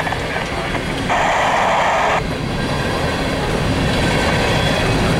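Empty coal gondola cars rolling past slowly, their wheels running steadily over the rails. About a second in, a separate burst of hiss starts and stops abruptly and lasts about a second.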